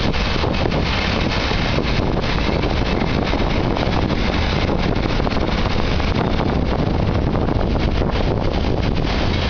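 Freight train of car-carrier wagons loaded with vans rolling steadily past, a continuous rumble of wheels on rails, mixed with heavy wind noise on the microphone.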